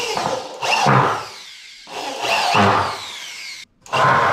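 Corded electric drill run in three short bursts as it works into a wooden 2x4 at a metal brace, the motor whine falling away as each burst ends.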